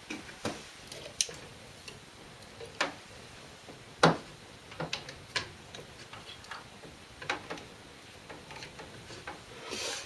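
Handling noise around a car battery's wiring: scattered sharp clicks and knocks, the loudest about four seconds in, with rubbing and a rustle of a sleeve and cables near the end.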